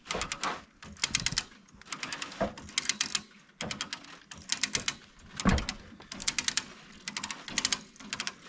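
A hand ratchet being worked stroke after stroke, pulling a portable sawmill along: each stroke is a quick run of sharp clicks from the pawl, repeating about once a second.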